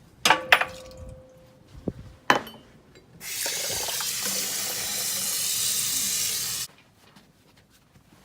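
A few sharp clinks and knocks, one ringing on briefly, then water running steadily from a tap for about three and a half seconds before stopping suddenly.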